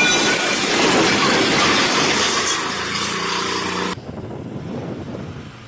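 Loud, rough crashing and rumbling as a crane's boom comes down onto stone. It cuts off abruptly at about four seconds to the much quieter, low running of a JCB backhoe loader's engine.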